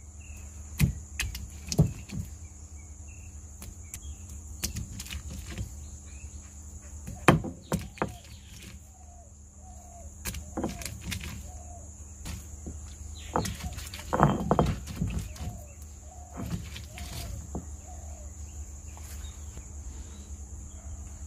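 Stone roller knocking and rolling on a flat stone grinding slab as lovi fruit is crushed for pickle: irregular thuds and clacks, with a close cluster of knocks about two-thirds through.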